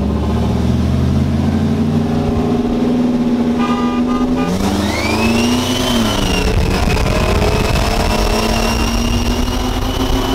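Two V8 pickup trucks accelerating hard side by side, one of them a Silverado with an LS1 V8, heard from inside the other cab. About halfway through a high whine rises and then holds steady over the engine noise.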